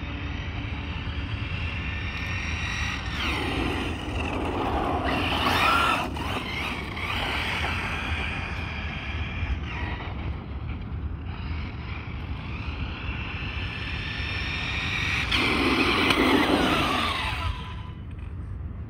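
Arrma Mojave 6S radio-controlled truck driven hard on asphalt: its brushless electric motor whines steadily, growing louder and sweeping down in pitch as the truck passes close twice, about five and sixteen seconds in.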